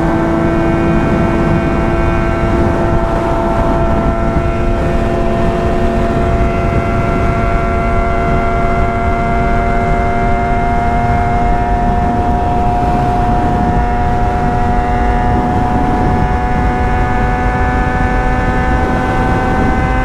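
Yamaha FZ6 Fazer 600's inline-four running on a bare, unsilenced exhaust pipe at steady highway speed, loud and even. Its pitch creeps slowly upward as the bike gradually picks up revs.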